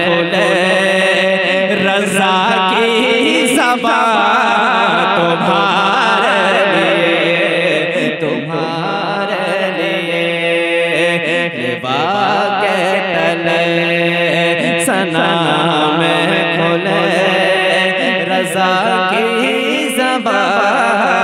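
A man singing a naat through a microphone and loudspeakers, a long drawn-out melodic passage with wavering, gliding held notes and no clear words.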